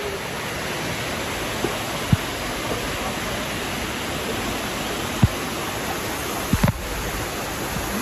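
Steady rush of a waterfall's cascading water, with a few short knocks about two, five and six and a half seconds in.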